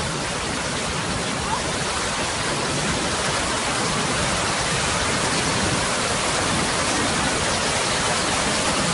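Ocean surf surging as foaming whitewater over a rock shelf: a steady rushing of water.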